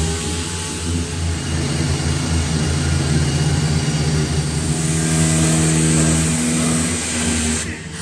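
Air-powered orbital sanders running steadily on the truck's sheet metal, stripping it to bare metal: a steady motor whine with a hiss of noise above it. The pitch shifts about five seconds in, and the sound cuts off abruptly near the end.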